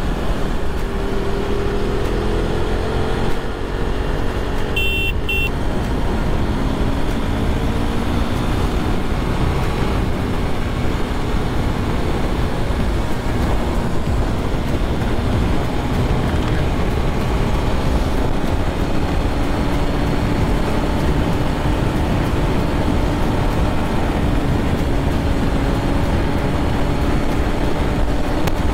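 Wind rushing over the camera at highway speed, with a KTM RC390's single-cylinder engine running steadily underneath, its pitch drifting slowly up and down. A short high beep sounds about five seconds in.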